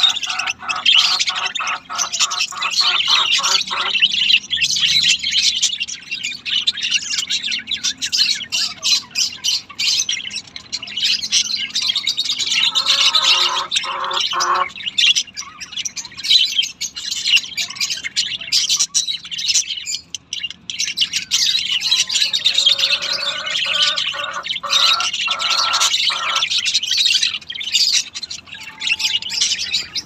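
A flock of budgerigars chattering and warbling without a break. A louder chirp, repeated about three times a second, comes in bouts at the start, around the middle and again later.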